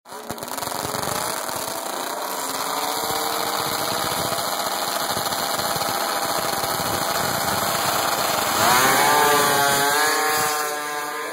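Racing snowmobile engines running at the drag-race start line, then revving hard as the sleds launch about eight and a half seconds in, the pitch sweeping up and the sound at its loudest as they pull away.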